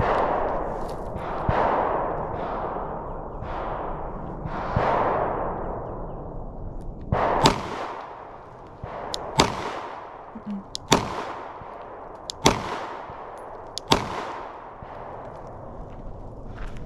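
Springfield Echelon 9mm pistol fired at a slow, aimed pace: several duller shots with long echoing tails in the first few seconds, then five sharp, loud shots about a second and a half apart.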